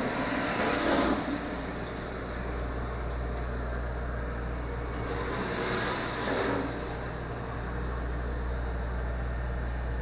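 Commercial stainless-steel restaurant dishwasher running its wash cycle: a steady pump hum under the rush of water spraying inside the closed hood. The noise swells louder twice, near the start and about six seconds in.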